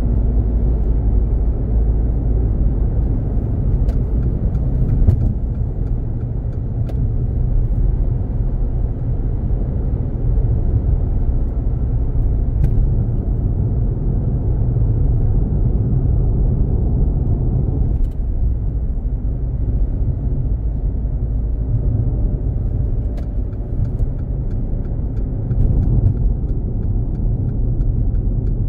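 Steady low rumble of a car's tyres and engine heard inside the cabin while driving along a road, with a few faint ticks.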